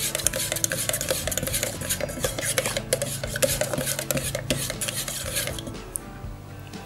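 A flat stirring stick scraping and knocking around the inside of a metal tin as epoxy primer is stirred, with fewer, quieter scrapes near the end.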